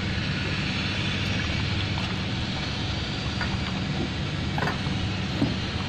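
Tugboat engine running with a steady low drone and an even hum, with a few faint ticks from hand work on the fender chain in the second half.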